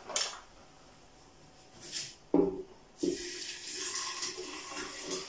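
Cooked soup vegetables and their cooking liquid poured from a saucepan into a blender jug, splashing steadily from about three seconds in. A sharp knock comes just before the pouring starts.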